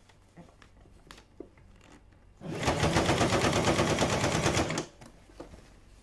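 Sewing machine stitching the folded hem of trousers in one fast run of rapid, even needle strokes, starting about two and a half seconds in and stopping abruptly about two seconds later. Faint clicks of the fabric being handled come before it.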